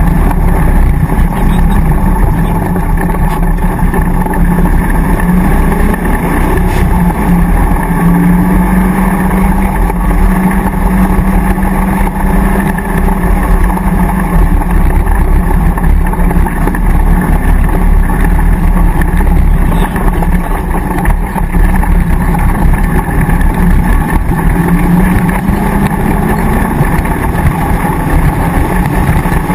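Land Rover V8 engine running hard under load off-road, its revs rising and falling with the throttle.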